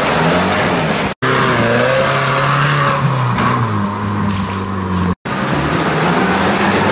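Engines of off-road UAZ-469s running and revving as they drive through mud and slush, the pitch rising and falling. The sound drops out abruptly twice for a split second, about a second in and about five seconds in.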